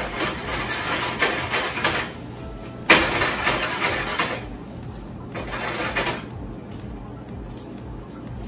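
Frying pan of vegetables sautéing in butter being shaken on an electric coil burner: three bursts of sizzling and scraping, the second starting suddenly about three seconds in.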